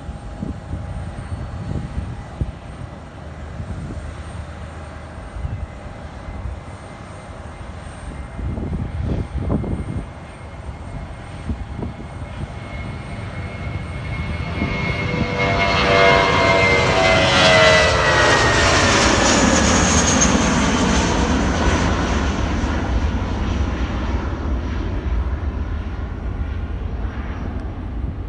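Jet airliner taking off and passing by: the engine noise builds about halfway through, peaks, and its whine falls in pitch as it goes past, then slowly fades. A low, uneven rumble sits under it throughout.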